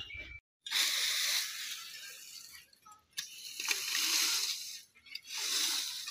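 Dry leaves and brushwood rustling and scraping as they are raked with a long-handled tool, in three long strokes.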